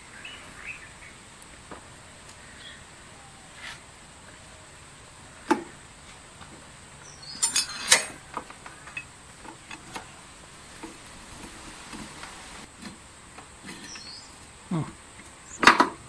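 Scattered clicks and metallic knocks of tools and parts being handled while a scooter's starter motor is refitted, with a cluster of sharp clinks about eight seconds in and louder knocks near the end.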